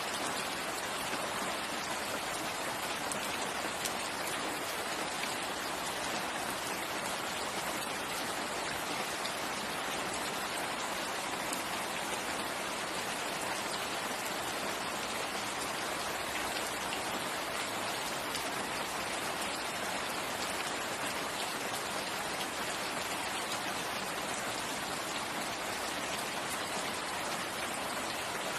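Steady rain falling, a continuous even patter of drops on surfaces.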